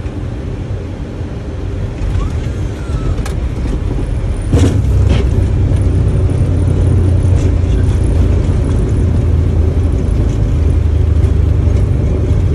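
Boeing 737 landing roll heard from inside the cockpit: a steady rumble of engines and wheels on the runway. About four and a half seconds in it jumps louder with two sharp thumps and stays louder.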